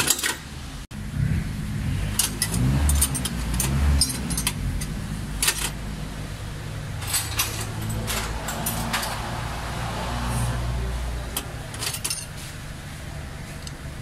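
Sharp metallic clicks and scrapes of a pick or small tool working at the front oil seal of a diesel injection pump, scattered irregularly throughout, over a steady low drone.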